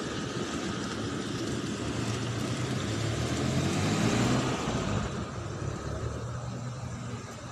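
Motor vehicle engine running with street traffic noise, a steady low drone that swells to its loudest about four seconds in and then drops off.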